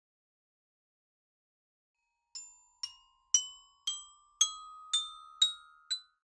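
Near silence, then a rising run of eight bright struck notes, about two a second, each ringing briefly: a glockenspiel-like chime.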